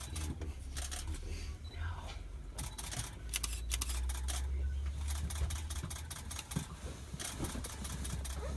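Tour bus engine idling with a steady low rumble, while camera shutters click in quick runs, thickest near the middle and again near the end.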